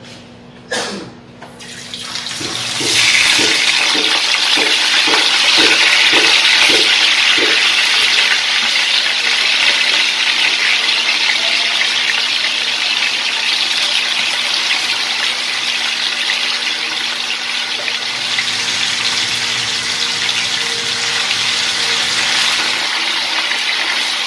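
Tofu cubes dropped one after another into hot cooking oil in a frying pan, about ten soft knocks, and the oil sizzling loudly and steadily from about two seconds in as the tofu deep-fries.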